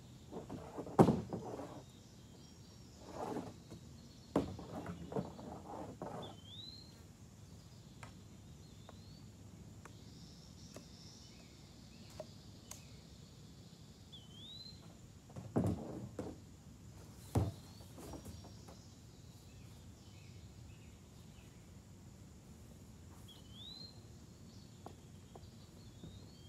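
Kayak paddling: knocks and watery splashes in bursts, the loudest about a second in and again about two-thirds of the way through. Meanwhile a bird repeats a short rising whistle every few seconds.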